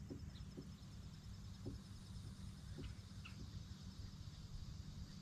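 Quiet lakeside ambience: a few faint, short bird chirps over a low steady hum, with a faint rapid high pulsing in the background.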